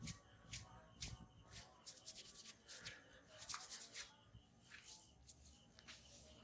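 Faint sound of a barber's hands rubbing over a customer's skin and hair in a head massage: a quick, uneven series of soft rubbing strokes, about two a second.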